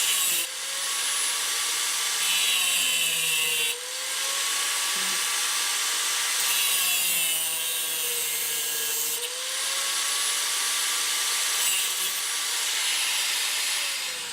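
Electric cutoff wheel grinding through the metal canister of an oil filter: a steady motor whine under a high grinding hiss. The pitch dips twice as the wheel bogs under load, and the tool stops at the end.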